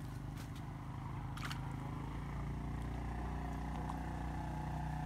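A motor engine running steadily with a low drone that shifts pitch about three seconds in, with a few short sharp clicks on top, one about a second and a half in.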